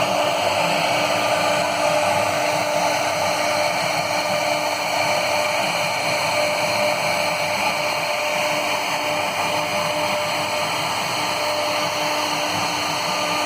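A CNC router running, a steady whir with a constant hum and no change in level.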